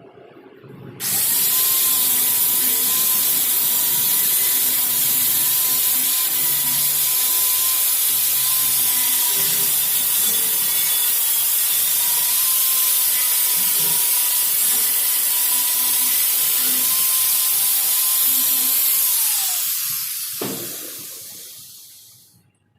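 Angle grinder starting abruptly about a second in and running steadily with a high hiss and a steady motor whine, then switched off near the end, its whine falling as it spins down.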